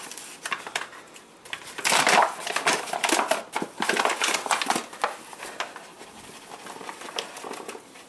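A bag of flour rustling and crinkling as it is handled and opened, in irregular bursts, loudest about two seconds in.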